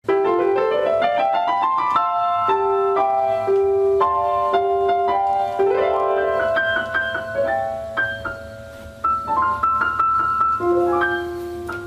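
Solo piano music, opening with a quick upward run of notes and another run about six seconds in, between held notes and chords.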